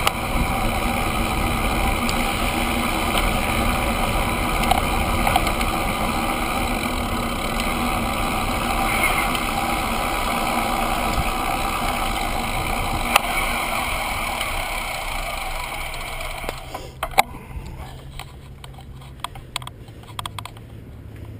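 Steady wind and tyre noise of a road bike rolling along, dying down about three quarters of the way through as the bike slows to a stop, followed by a few light clicks.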